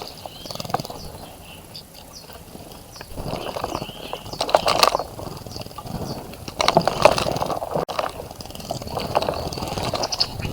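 A small bird splashing and fluttering in a birdbath, in three bursts of splashing a couple of seconds apart. Small birds chirp in the background.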